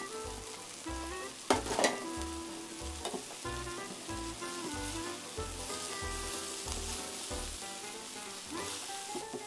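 Pancit canton noodles and vegetables sizzling in a frying pan as a spatula stirs and tosses them, with a few sharp clacks of the spatula on the pan, the loudest about one and a half seconds in. Light background music with a steady beat plays under it.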